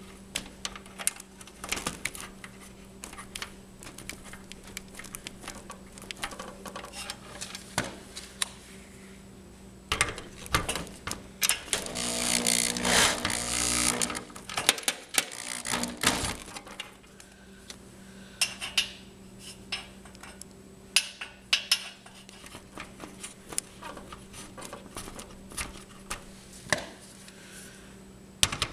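Bolts being fitted and tightened on a steel garage door hinge: scattered clicks and metallic clinks of tools and hardware, with a louder stretch of tool noise lasting about two seconds, around halfway through.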